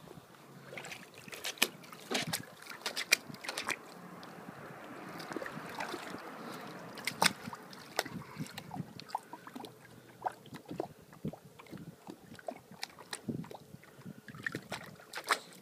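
Water splashing and sloshing in a shallow plastic kiddie pool as an Old English Bulldogge paws and stomps through it, in irregular splashes that come in quick runs.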